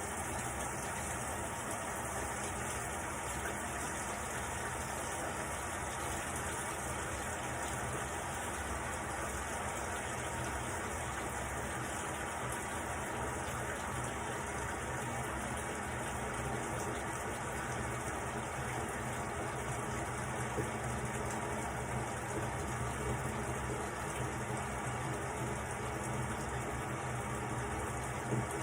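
Water running steadily into the drum of a Panda PAN6320W portable washing machine as it fills at the start of a quick-wash cycle.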